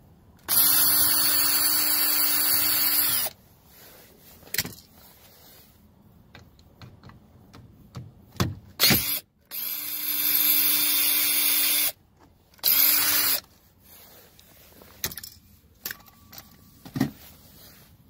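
Cordless drill with a socket extension backing out mirror mounting bolts in bursts. There is a steady run of about three seconds near the start, then two shorter runs later on, with a few clicks and knocks between the runs.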